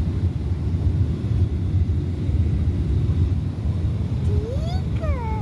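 Airliner cabin noise during descent: a steady low rumble of engines and airflow heard from inside the cabin. A little over four seconds in, a short voice sound rises and then falls in pitch.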